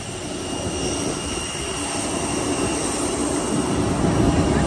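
Steady jet aircraft noise from the apron, a constant rushing hum with a faint steady whine, growing a little louder near the end as the airliner's boarding stairs are reached.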